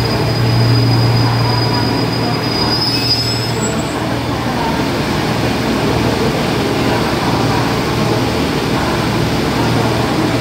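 Diesel multiple-unit express train running slowly into the platform and braking to a stop: a thin high brake squeal that rises in pitch and dies out about three to four seconds in, over the steady low hum of the railcars' diesel engines.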